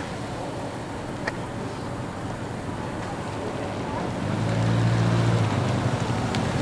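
Steady outdoor wind rumble, with a vehicle engine humming past that swells about four seconds in and fades away about two seconds later.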